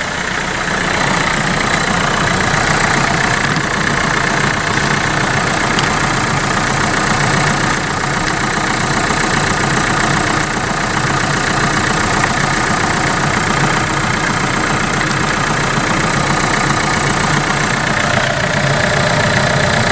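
Renault Kangoo engine idling steadily with the headlights and heater blower on full to load the alternator, a test run after a new alternator overrunning clutch pulley was fitted; it runs evenly, with no knocking.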